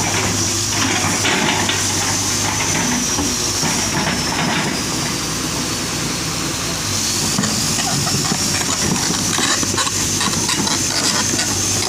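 Hitachi hydraulic excavator running steadily, with a low engine hum and a high thin whine that sags in pitch around the middle and climbs back near the end. Scattered light knocks come through, typical of the machine working.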